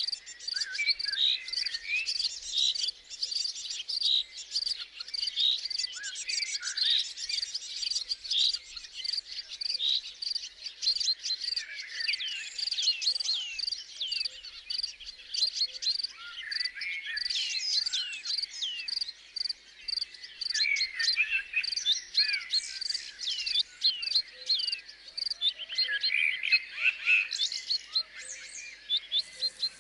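Crickets chirping in a steady, even pulse, with many small birds calling over them in quick falling chirps that come thickest in several flurries.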